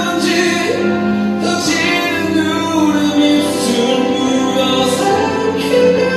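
Background music: a song with singing over sustained accompaniment.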